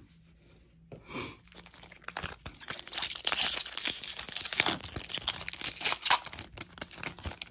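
Foil wrapper of a Topps Chrome trading-card pack being torn open by hand, a dense crinkling and tearing that starts about two seconds in and goes on for several seconds.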